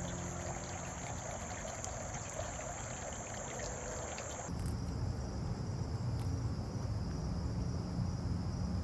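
Crickets trilling in a steady high chorus. About halfway through, the sound changes abruptly to a slightly lower, pulsing insect trill over a low rumble.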